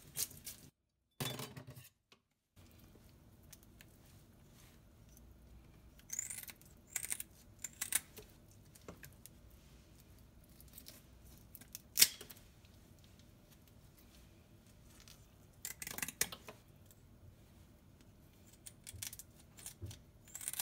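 Kitchen shears snipping through a hilsa fish's fins and head: scattered sharp clicking cuts with pauses between them, one much louder snip midway. Background music cuts off in the first second.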